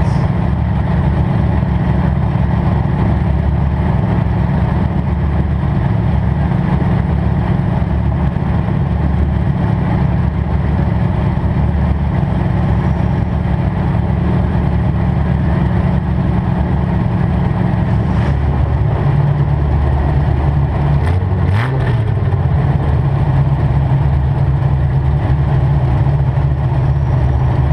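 Demolition derby car's engine idling steadily through open exhaust headers that stick straight up through the hood. About two-thirds of the way in the idle note drops, and a moment later the engine is briefly revved, with a couple of sharp clacks.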